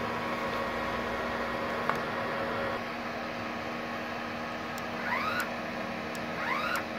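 Multipro MIG-MMA/TIG 160 A-SC MIG welding machine humming steadily while its wire-feed motor drives the 0.8 mm solid wire through the torch liner to the tip, with the trigger held and no arc struck.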